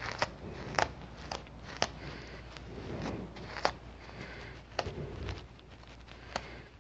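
Scattered sharp clicks, about seven of them at irregular spacing, over light shuffling.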